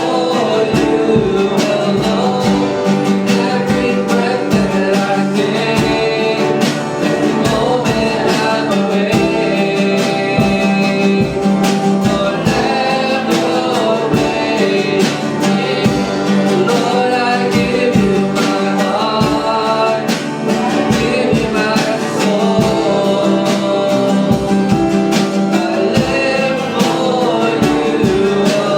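Worship song with singing over a band led by guitar, with a steady strummed or beaten rhythm.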